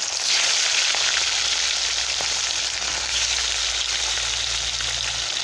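Rohu fish steaks rubbed with salt and turmeric sizzling in hot oil in a wok as more pieces are slid in, a dense steady crackling hiss that swells slightly just after the start.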